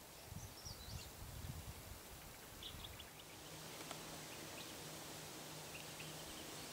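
Faint outdoor ambience with scattered short, high bird chirps. A low rumbling noise comes in the first two seconds, and a faint steady low hum runs from about halfway on.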